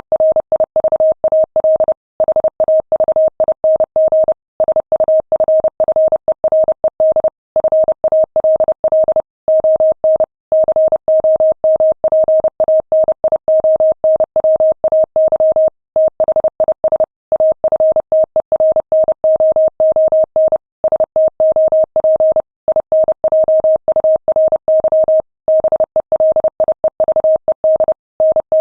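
Morse code sent at 30 words per minute: a single steady beep keyed on and off in fast dots and dashes, with short pauses between words.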